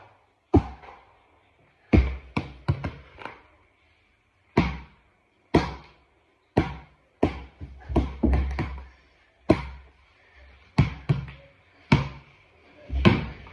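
A ball bouncing on a tiled floor as it is dribbled. The sharp bounces come roughly once a second, sometimes two or three in quick succession.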